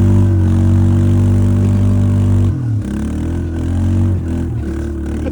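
Motor vehicle engine running loudly at a steady speed, then dropping in pitch about two and a half seconds in and rising and falling as the throttle changes.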